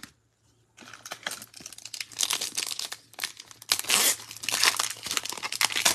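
Foil wrapper of an Upper Deck hockey card pack being torn open and crinkled by hand: a dense, irregular crackling that starts about a second in and keeps going.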